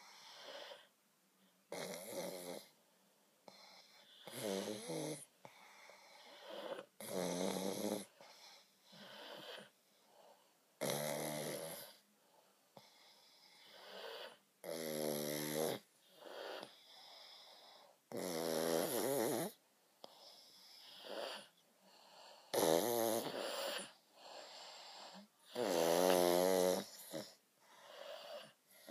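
Pugs snoring in their sleep: a pitched snore on each breath, with louder and softer snores alternating about every two seconds, the flat-faced breed's typical snoring.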